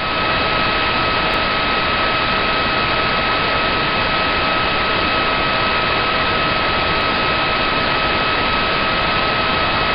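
Emergency alert alarm sound: loud, even static hiss with a steady tone and its overtones held underneath, unbroken.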